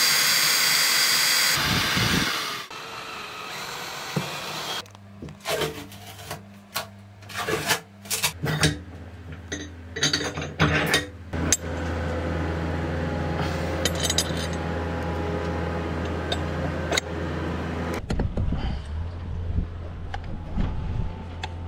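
Electric drill boring a pilot hole through a cured epoxy plug in a boat's teak deck, for about two seconds, with a steady whir. It is followed by a run of sharp knocks and clatters of hand work, then a steady low hum with lighter clicks.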